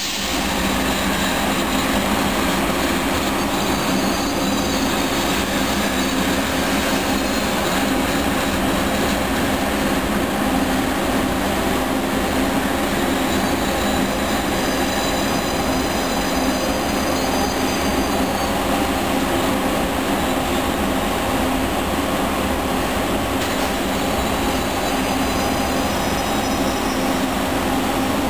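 Frecciarossa ETR 500 high-speed electric train rolling slowly over the station tracks with a steady hum. A thin, high-pitched wheel squeal comes and goes over it, dropping out for a few seconds past the middle.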